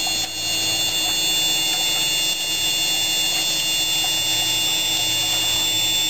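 Steady high-pitched whine of the KA-TE pipe robot's electric grinding head running against the pipe wall, grinding out a crack.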